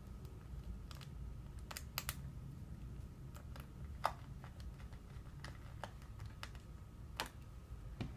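Scattered light clicks and taps, about a dozen at irregular intervals with the sharpest about four seconds in, as the parts of a laptop screen assembly are handled and fitted back together.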